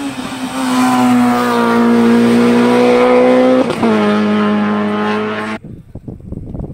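Car engine held at high revs, a steady strong pitch that climbs slightly, drops briefly about four seconds in as at a gear change, then resumes lower and cuts off abruptly at about five and a half seconds.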